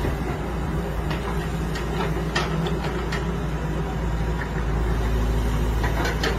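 Backhoe loader's diesel engine running steadily as the arm and bucket work, with a few short knocks.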